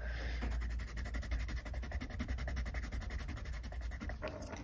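Dark blue coloured pencil scribbling rapidly back and forth on paper, a steady scratchy rubbing that stops shortly before the end.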